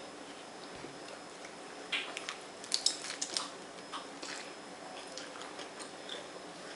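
Crisp lettuce leaves crunching as a lettuce-wrapped taco is bitten into and chewed, with a cluster of crackling crunches about two to three and a half seconds in and a few more shortly after.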